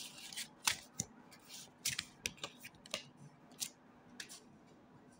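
Tarot cards handled and shuffled by hand: a run of crisp card snaps and short papery rustles, stopping a little after four seconds in.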